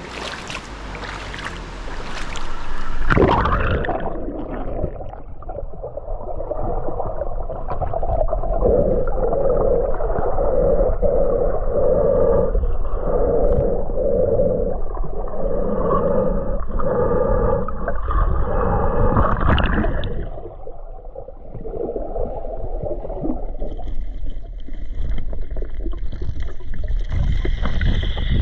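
Splashing as a swimmer in fins enters a river, then about three seconds in the sound turns muffled and dull as the action camera goes under the water: a low rushing with a dull pulse about once a second as he swims.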